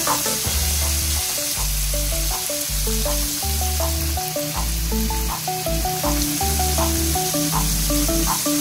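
Breaded chicken wings deep-frying in hot oil in a wok, a steady sizzle. Electronic background music with a bass line and a regular beat plays over it.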